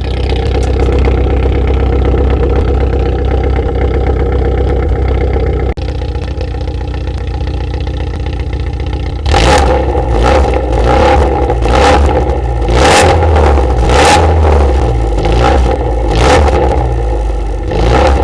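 Proton Wira engine running through a Kakimoto Regu 06&R titanium muffler with no silencer fitted: a steady, loud drone for about nine seconds, then a series of quick throttle blips, roughly one a second.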